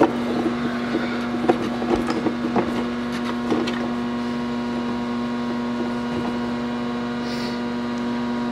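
A steady hum made of several fixed tones, with scattered light clicks and knocks as the old drive belt is worked off the CVT clutch.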